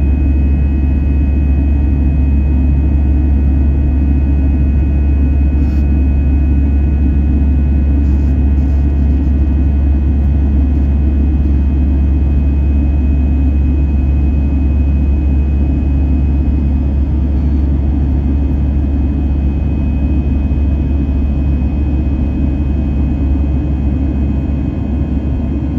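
Airbus A320 cabin noise during the climb-out: a steady jet-engine and airflow rumble, heavy in the low end, with a few faint steady whines above it.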